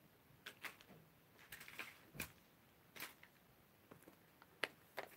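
Near silence, with a scattering of faint, short taps and clicks at irregular intervals.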